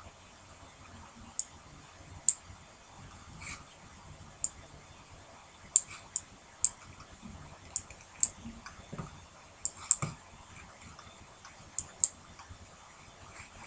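Sharp, irregular clicks of a computer mouse button, about fourteen in all, some coming in quick pairs.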